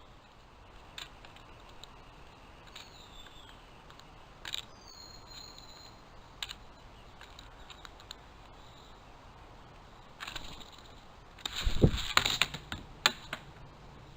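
Scattered clicks and taps close to the microphone from animals scrabbling at the camera and feeding table, building to a burst of loud knocks and a thump about twelve seconds in. Two short, high, sliding chirps come in around three and five seconds in.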